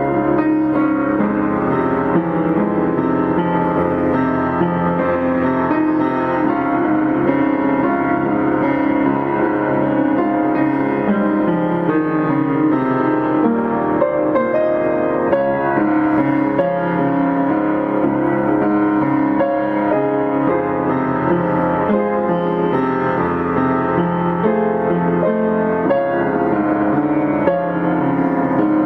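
Background piano music playing steadily, a continuous flow of notes.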